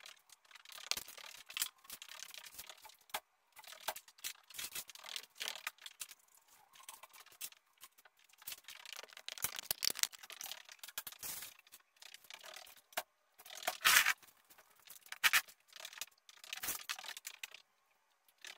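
Irregular rustling, clicks and scrapes of a person moving about and handling things, with a sharper clatter about fourteen seconds in.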